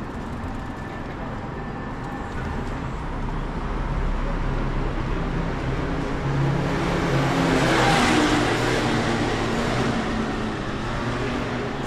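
Street traffic, with a motor vehicle passing close by: its engine and tyre noise swell to a peak about eight seconds in, then fade.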